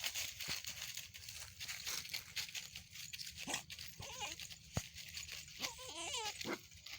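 An animal's short, wavering calls, twice, over a steady hiss with scattered clicks.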